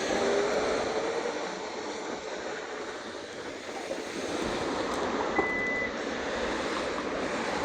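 Steady road-traffic noise, with a vehicle's engine note rising at the start and one short high beep a little after five seconds in.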